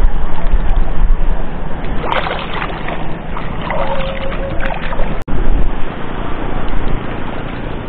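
Wind buffeting the microphone over water splashing and sloshing, with a faint steady tone for about a second midway.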